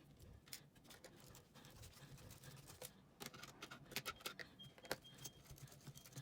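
Faint, scattered small clicks and taps of hands handling a Chromebook's LCD panel and plastic lid as the panel is freed after its screws are removed. The clicks come more often from about halfway through.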